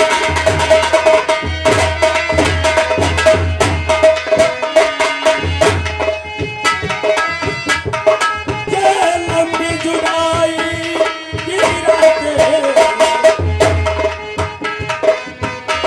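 Instrumental Indian folk music: hand drums play a quick, busy rhythm with deep thumps under a sustained melody line.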